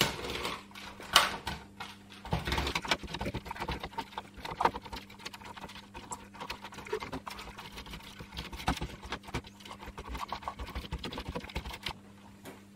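Microfiber cloth wiping and scrubbing a plastic computer-keyboard frame: an uneven run of short rubbing rasps and small knocks of the plastic against the bench.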